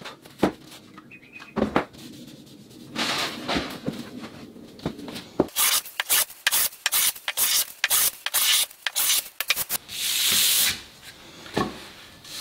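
Metal bench hand plane taking shavings off a hardwood rail: a run of many short, quick strokes, then one longer stroke near the end, taking more off the middle of a slightly crowned board than off the ends. A few sharp knocks of tool on wood come in the first two seconds.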